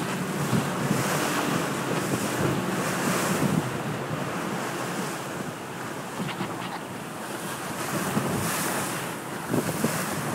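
Wind buffeting the microphone over the steady rush and splash of water along a boat under way, the hiss swelling twice.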